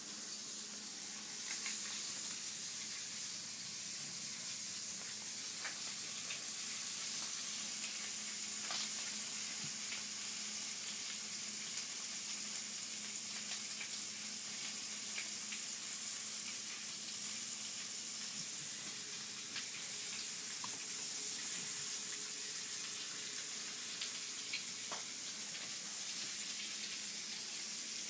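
Bacon frying in a pan: a steady sizzle with scattered sharp pops.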